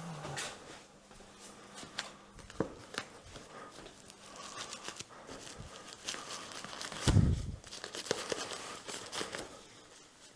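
Paper rustling and crinkling among light clicks and knocks of handling, with one dull thump about seven seconds in.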